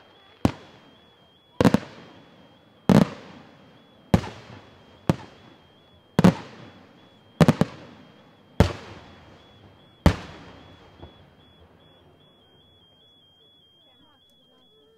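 Aerial firework shells bursting one after another, about nine sharp bangs a second or so apart, each followed by a rolling echo that fades. The last burst comes about ten seconds in and its echo dies away.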